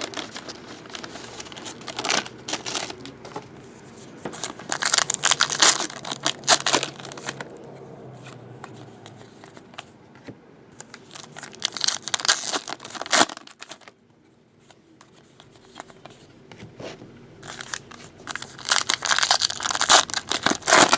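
Trading card pack wrappers being torn open and crinkled by hand, in four bursts of ripping and rustling with quieter handling between them.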